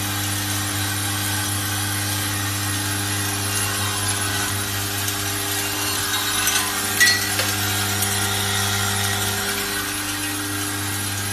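Automatic bolt-and-washer assembly machine running, its vibratory bowl feeder humming steadily under a rough rattling hiss of M8x40 bolts and washers moving along the feed tracks. A single sharp clack about seven seconds in.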